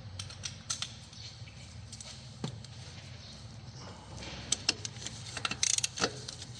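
Scattered sharp clicks and light rattles of tools and parts being handled during repair work, with a quick cluster of clicks about five and a half seconds in.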